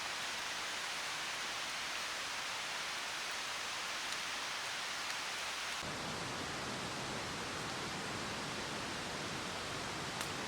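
Steady rushing outdoor background noise with no clear pitch, its low end suddenly fuller about six seconds in, with a couple of faint ticks.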